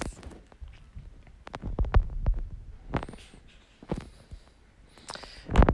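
Fingertips tapping on a phone's touchscreen keyboard, heard as irregular soft clicks and low thuds, with a louder thump near the end.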